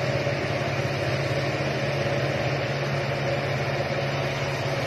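Kobelco crawler excavator's diesel engine running with a steady hum while the machine works.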